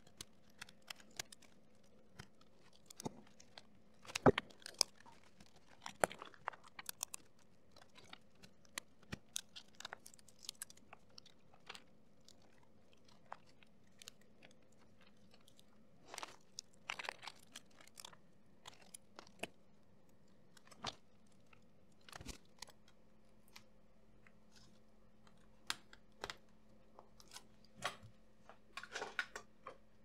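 Scattered small clicks, taps and scrapes of hands fitting internal parts and connectors back into an opened laptop, with a couple of louder knocks around four and six seconds in.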